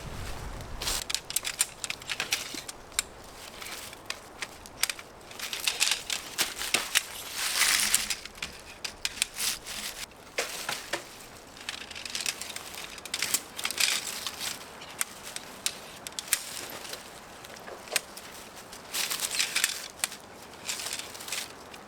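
Crunching and crackling of snow and brush: irregular sharp crackles mixed with rustling, with louder rushes about eight, fourteen and twenty seconds in.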